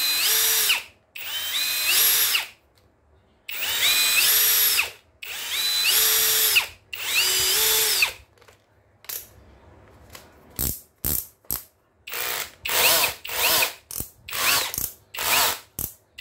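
Cordless 18 V drill-driver (two-function, no hammer) run five times in a row, its motor whine rising in steps as it spins up and dropping off when the trigger is released. This is followed by a rapid series of short trigger blips.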